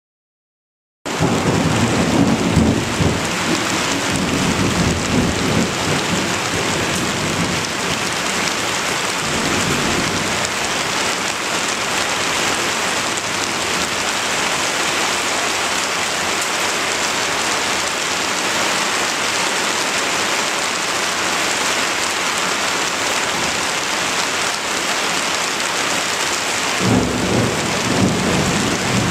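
Heavy rain pouring steadily in a thunderstorm, starting about a second in, with rolls of low thunder rumbling through the first few seconds and again near the end.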